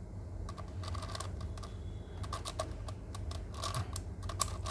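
Sengso Crazy Megaminx plastic puzzle being turned by hand: quick clicks and clacks as its faces are twisted and snap into place, coming in irregular bunches.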